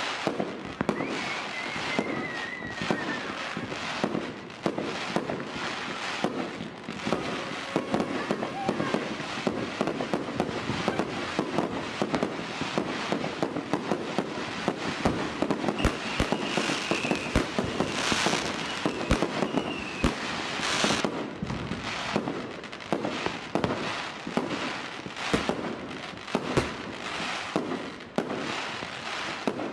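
Many firecrackers and fireworks going off, a dense, irregular run of bangs and crackling with no let-up. A thin falling whistle sounds about two seconds in, and another high whistle comes near the middle, like whistling rockets.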